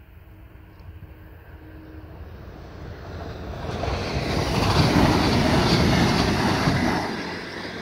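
Red DB electric multiple-unit passenger train passing at speed, a rush of wheel and air noise. It builds from about three seconds in, is loudest in the second half, and fades as the train clears.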